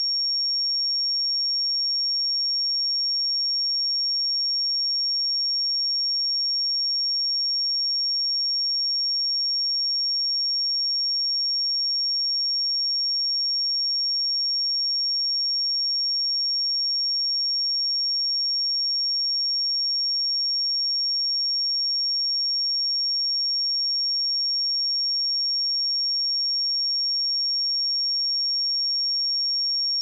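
A single steady 5538 Hz sine-wave test tone, a constant high-pitched whistle held without change.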